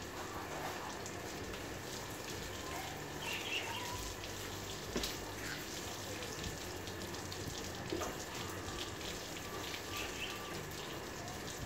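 Water from a garden hose spraying onto a car's body and splashing and dripping onto a concrete floor, an even hiss with a couple of short knocks.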